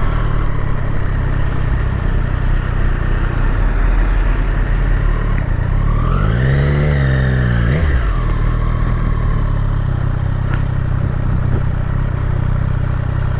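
Triumph Street Triple RS's 765 cc inline three-cylinder engine running at low revs under way, over a steady rush of wind and road noise. About six seconds in, the revs rise and fall once, in a brief throttle blip.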